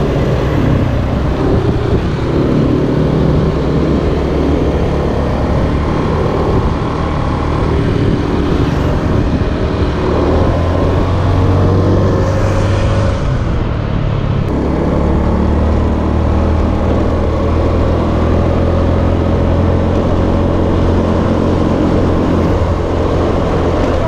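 Honda scooter's engine running as it rides along a road, its pitch rising and falling with the throttle, over steady wind and road noise. The sound changes abruptly a little past halfway.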